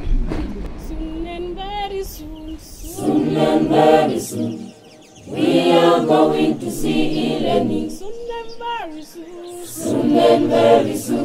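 A school choir singing a cappella. A lone voice sings a short line, and the full choir comes in after it, several times over.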